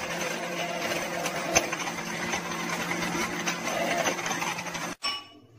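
National De-luxe electric blender motor running steadily as it blends a liquid mint mixture, with a single click about one and a half seconds in; it cuts off abruptly about five seconds in.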